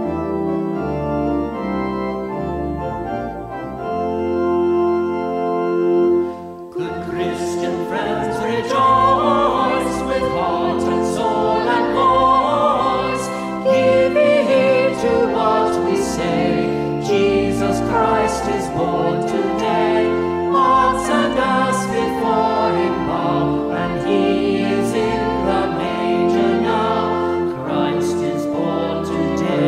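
Church music: sustained organ chords, then about seven seconds in, singing with a fuller accompaniment comes in.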